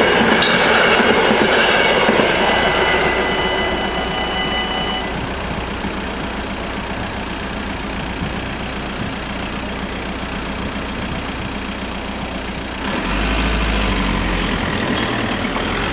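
NMBS MS80 electric multiple unit running over the level crossing and away, its rumble fading over the first few seconds, with a steady high tone that stops about five seconds in. A louder low rumble comes in near the end.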